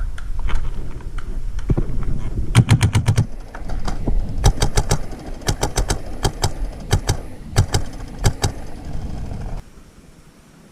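Paintball markers firing in rapid bursts, about ten shots a second. Several bursts come from about two and a half seconds in, and the firing stops short of the end.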